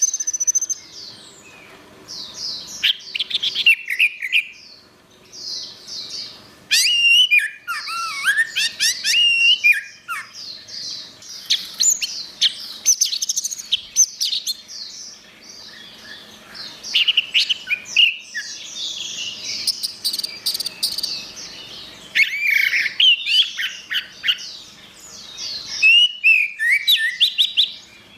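Orange-headed thrush singing a loud, varied song of fast whistles, slurred glides and chattering notes. The phrases come in bursts of a few seconds, with short pauses between them.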